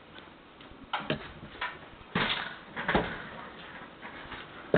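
Handling noise: a scatter of short knocks and clicks, the loudest about two and three seconds in.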